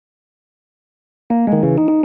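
Silence, then background keyboard music starts abruptly a little over a second in: a quick, bouncy melody of separate piano-like notes.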